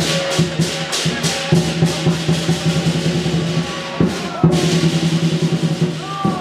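Chinese lion dance percussion: a drum beating fast with clashing cymbals. The cymbal crashes are densest in the first second and a half and again about four seconds in.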